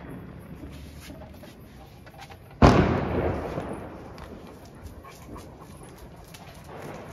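A single loud firecracker bang about two and a half seconds in, sudden and dying away in a long echoing tail, with faint scattered crackles around it.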